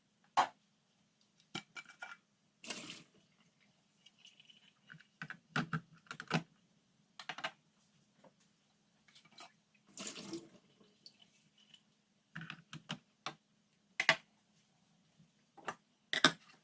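Kitchen handling sounds: a scattered series of sharp clicks and knocks from containers and utensils being set down and handled, with a few short rustling or splashing bursts, over a faint steady hum.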